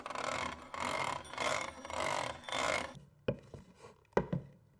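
Foley props worked by hand: a rough mechanical rasping in about five swells, one every two-thirds of a second or so, then after about three seconds a few sharp knocks.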